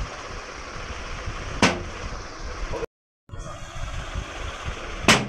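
A large, nearly empty plastic bottle being flipped and landing twice, each landing a single sharp smack, the two about three and a half seconds apart.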